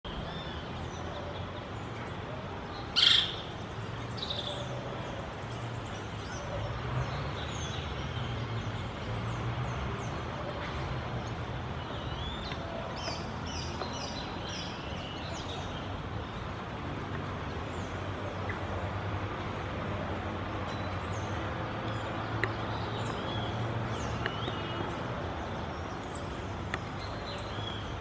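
Birds calling and chirping, with scattered short high notes, one loud sharp call about three seconds in, and a quick run of short notes about halfway through, over a steady low hum.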